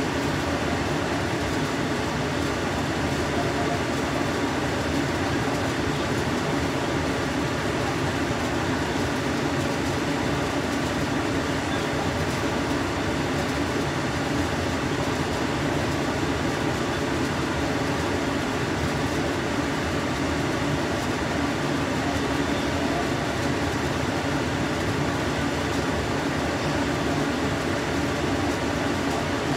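A steady, even rushing hum, like a fan running, with no breaks or changes.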